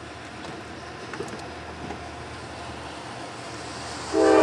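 Steady rumble of an approaching train, then a locomotive air horn sounds loudly about four seconds in, several notes together in one chord.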